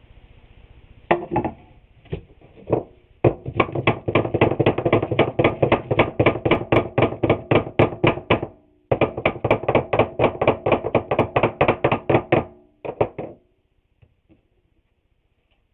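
Quick, even knocks on the glued-up wooden trim boards, about four or five a second in two long runs after a few single knocks: the boards are being tapped into line along the glue joint.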